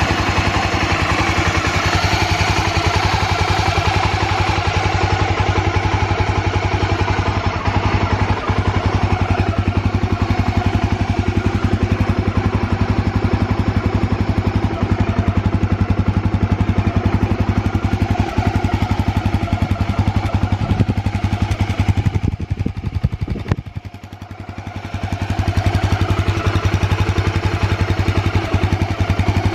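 Honda XL250 Degree's air-cooled single-cylinder four-stroke engine running steadily at idle, its level dipping about two-thirds of the way through and then picking back up. The seller describes the engine as free of abnormal noises.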